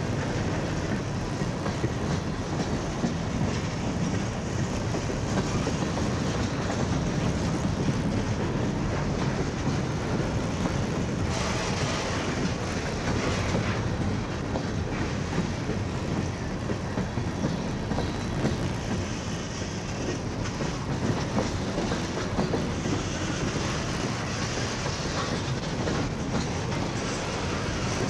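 CSX freight train's cars rolling past, a steady, continuous noise of steel wheels on the rails.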